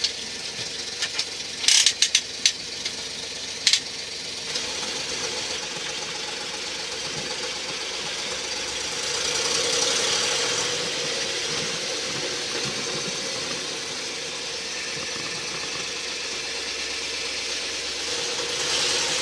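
Boss 302 V8 in a 1976 Ford F100 pickup running while the truck drives, heard from inside the cab, with the revs rising for a moment about halfway through. A few sharp clicks and knocks sound in the first four seconds. The owner says the engine has bad exhaust header leaks.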